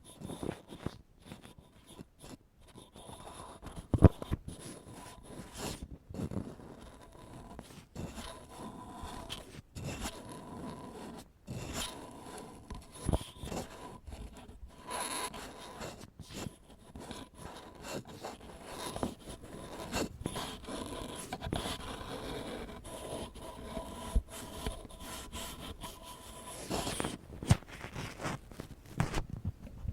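Ear pick scraping and rubbing close against a microphone: a continuous scratchy rasp broken by frequent short clicks and a few sharper knocks. It grows sparser near the end.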